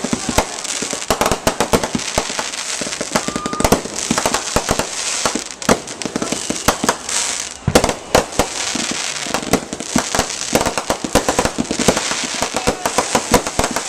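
Fireworks going off in a continuous barrage: many sharp bangs a second over a steady crackling hiss.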